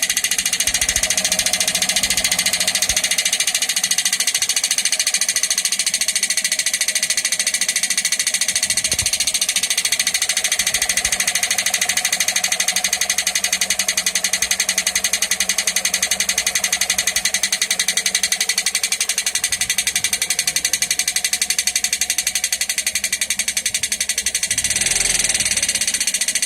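Toyota 1ZZ inline-four engine running with a rapid, steady knock, a little louder near the end; the knock comes from a cracked flywheel.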